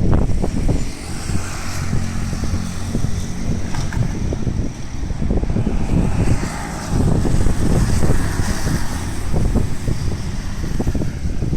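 Windstorm gusting hard, buffeting the microphone with an uneven low rumble over a steady rushing hiss.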